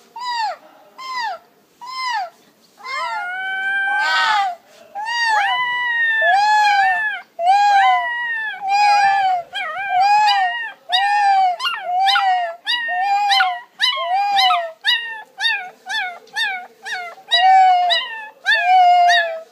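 A small puppy howling: a string of high, arching howls, short yips at first, then a few longer drawn-out howls a few seconds in, then quicker short howls about two a second.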